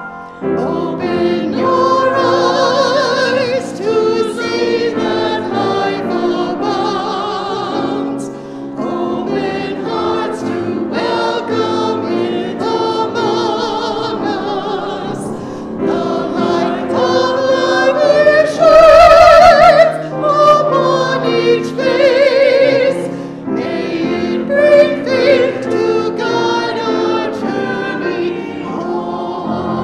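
Congregation and small choir singing a hymn together with piano accompaniment; the voices swell loudest a little past the middle.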